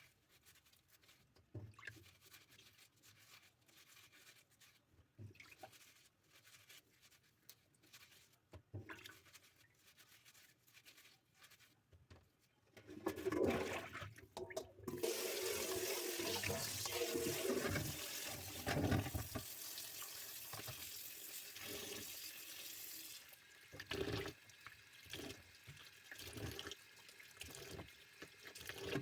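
Light clicks and knocks of handling, then about halfway through a tap runs water into a sink steadily for about eight seconds before easing off, with knocks from items being rinsed under it.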